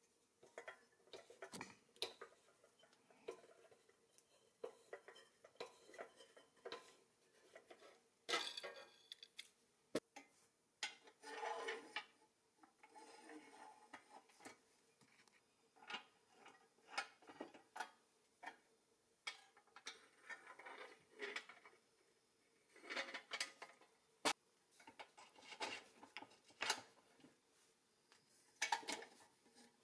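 Small pressed-steel toy-truck parts handled during reassembly: scattered light clicks, clinks and short scrapes of metal on metal, with a couple of sharper knocks.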